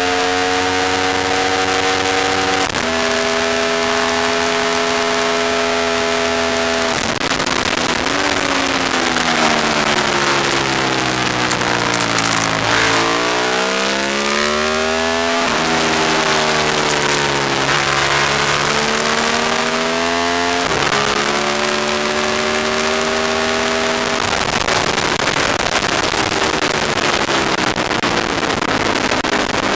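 Aprilia SXV550 supermoto's V-twin engine heard onboard at race pace, with wind rushing over the bike. It holds steady revs with a sudden shift about three seconds in, falls in steps as the rider brakes and downshifts, then revs rise sharply as it pulls out of the bend, followed by more shifts and another slowing near the end.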